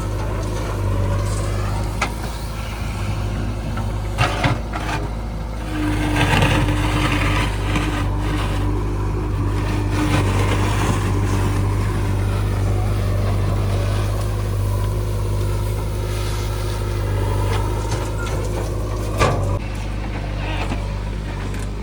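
JCB 3DX backhoe loader's diesel engine running steadily while it digs and loads mud, with a few sharp knocks around four seconds in and near the end.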